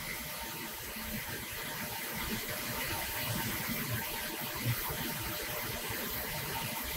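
Steady rushing background noise in a machine shop, even and unbroken, with no distinct taps or machine rhythm.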